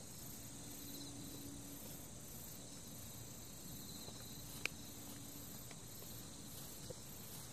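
Insects trilling in the grass, a faint steady high-pitched chorus in an even pulsing rhythm, with a single sharp click about halfway through.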